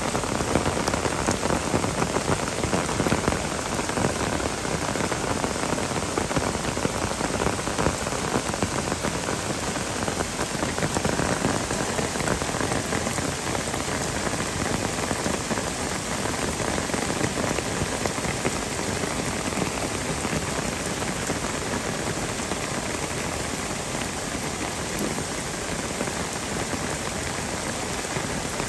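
Heavy downpour: rain falling hard and steadily, a dense, even patter with no letup.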